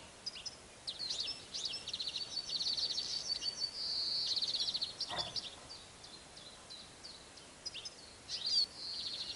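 Small songbirds singing and chirping: many short high chirps and several fast trills, the longest and loudest about four to five seconds in. A faint knock sounds just after five seconds.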